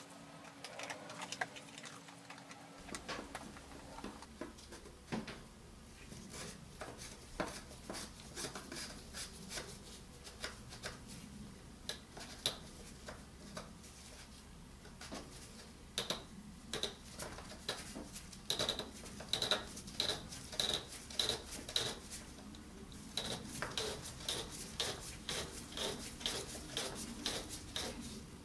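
Light clicks, knocks and rubbing as a gloved hand works a new oil filter element and its housing cap into place on a Peugeot 1.6 HDI diesel engine, with a quick run of even clicks a little past the middle.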